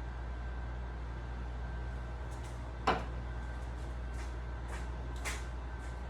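Microwave oven running with a steady low hum, with a sharp click about three seconds in and a softer one a little past five seconds.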